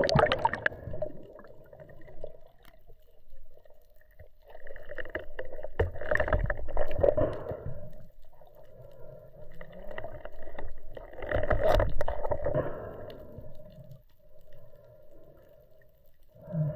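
Underwater noise on a mask-mounted camera during a freedive descent: a rush of bubbles from the entry at the start, then two long surges of water rushing past the camera, over a steady hum.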